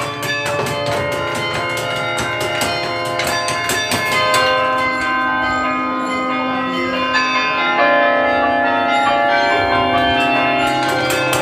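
Domtoren carillon bells played from the baton keyboard, ringing out a melody. For about four seconds the notes are struck quickly, then slower notes are held and left to ring.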